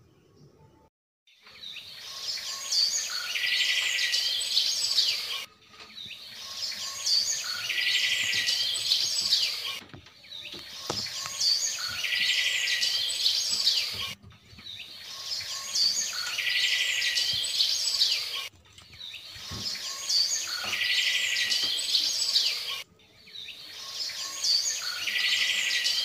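A recording of birds chirping and singing, played as a loop: the same stretch of about four seconds starts about a second in and repeats six times. Each repeat swells in and cuts off sharply.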